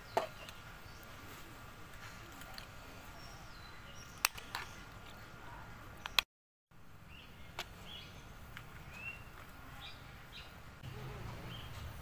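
A few sharp clinks of a metal spoon against an aluminium cooking pot over steady outdoor background, with birds chirping in short calls. The sound drops out completely for a moment a little past halfway.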